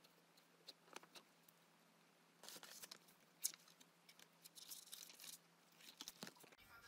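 Faint pen-on-paper scratching and paper rustling from writing in a notebook, in a few short scratchy bursts with scattered light ticks.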